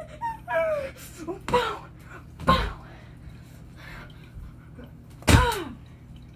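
A boy's short wordless cries and grunts, several sliding down in pitch, with dull thuds as a stuffed toy is swung and hit; the loudest cry and thud come about five seconds in.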